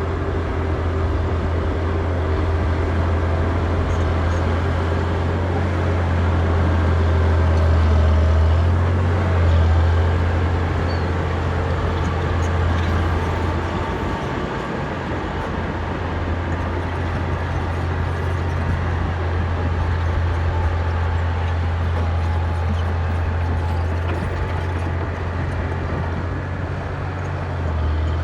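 Caterpillar D6D crawler dozer's Cat 3306 diesel running steadily under load as it breaks out shale and clay, with a rough grinding noise over the low engine drone. The engine swells louder about eight to ten seconds in, then settles back.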